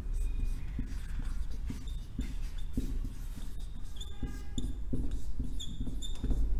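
Marker pen writing on a whiteboard, the felt tip squeaking several times in short high squeaks, mostly in the second half.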